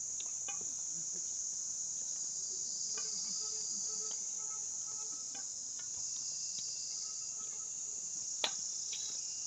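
Steady, high-pitched chorus of insects in the forest, unbroken throughout, with one sharp click near the end.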